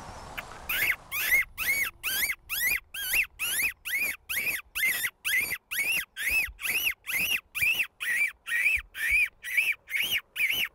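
A hunter's mouth-and-hand fox call: lips pressed to the hand, sucking out a fast run of shrill squeaks, about two or three a second, each rising then falling in pitch, beginning just under a second in. The squeaks mimic a distressed small prey animal to lure a fox.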